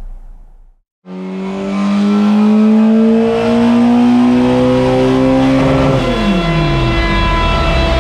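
Classic Mini's race-built Swiftune 1380 cc A-series engine with a Weber 45 DCOE carburettor, held under load on a rolling road. The revs climb steadily for about five seconds in a power run, then fall away sharply and settle. The sound starts about a second in, after a moment of silence.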